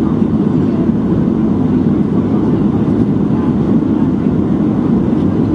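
Steady cabin noise of a Boeing 737-700 on approach: a loud, even, low rumble of its CFM56-7B engines and rushing air, heard from a window seat over the wing.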